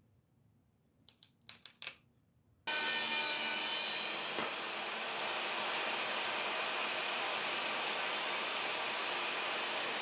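A few light clicks, then a woodworking power tool starts abruptly about three seconds in and runs loud and steady with an even whir, cutting off suddenly at the end.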